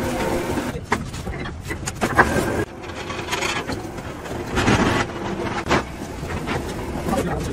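Three-roll plate bending machine running, a steel sheet scraping and grinding between its rollers as it is rolled into a cylinder, with a few sharp metal knocks.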